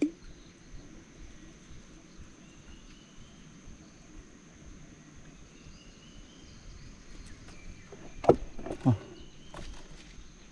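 Tropical forest ambience: a steady high-pitched insect drone with repeated short rising bird calls, and near the end two loud falling sweeps about half a second apart.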